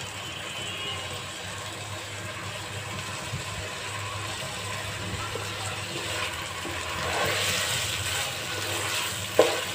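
Wooden spatula stirring raw pulao rice in hot oil in a nonstick pan: a rough scraping rustle of grains that grows louder about seven seconds in, with a single knock near the end. Before the stirring, only a low steady hum.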